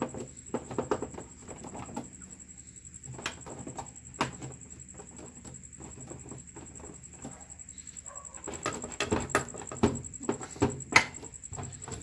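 Scattered light clicks and taps on the plastic top and control panel of Electrolux top-load washing machines as a hand handles them, over a faint steady high whine.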